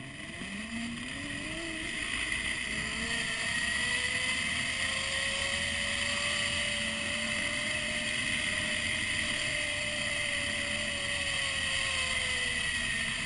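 Zip-line trolley pulleys rolling along the steel cable: a whine that rises in pitch as the rider picks up speed, holds steady, then falls as the rider slows toward the landing platform near the end.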